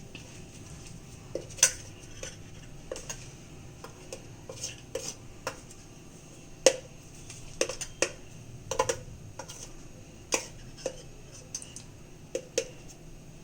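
A metal utensil tapping and clinking against a plate in irregular sharp taps while chicken cutlets are pressed into shape, with two louder clinks about one and a half seconds and six and a half seconds in.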